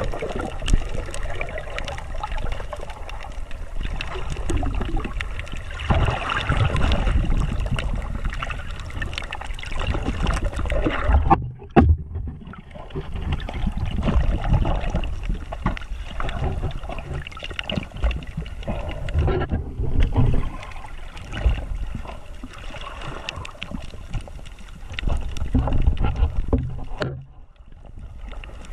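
Water splashing and sloshing close to the microphone, full of small crackles and gurgles. The sound goes briefly muffled and near-silent a few times.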